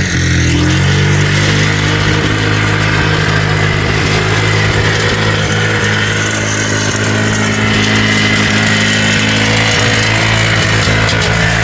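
Polaris two-stroke ATV engine, its top end freshly rebuilt with a new piston, running steadily after a short rise in revs at the start.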